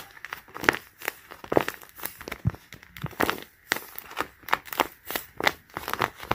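A tape-covered paper squishy being squeezed and pressed by hand, its paper and tape skin crinkling and crackling in repeated bursts, about two a second.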